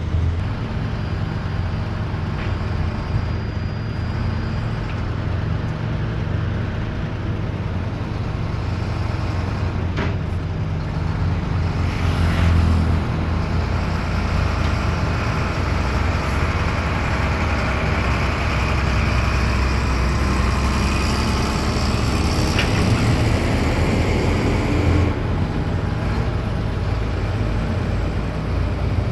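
Diesel engines of heavy earthmoving machinery (large excavators and dump trucks) running with a steady low drone, with a few sharp knocks. The machine noise grows louder and harsher from about twelve seconds in, then eases off a few seconds before the end.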